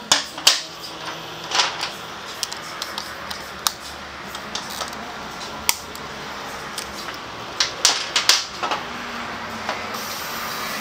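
Irregular sharp metal clicks and clinks of hand tools and parts being handled at a scooter's underside, with a cluster of quick clinks near the start and another about eight seconds in.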